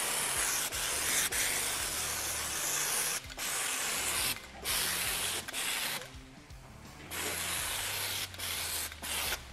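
Air-driven rustproofing spray wand hissing as it coats the car's underbody, brake lines and fuel lines. It comes in about six bursts with short breaks between trigger pulls, the longest break coming about six seconds in.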